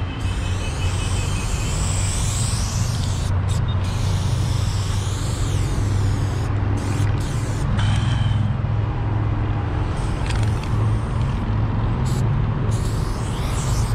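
Aerosol spray-paint can hissing as black paint is sprayed onto a rough wall, with a few short breaks as the nozzle is released. A steady low rumble runs underneath.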